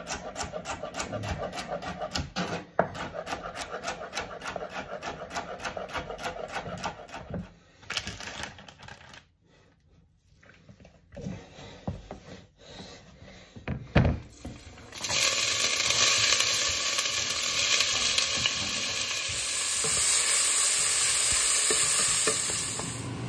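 A chef's knife rapidly chopping celery on a wooden cutting board, several strikes a second. After a quieter stretch with a few scattered knocks, diced onion, carrot and celery sizzle steadily in a pot while being stirred with a wooden spoon, the loudest part, about two-thirds of the way in and on.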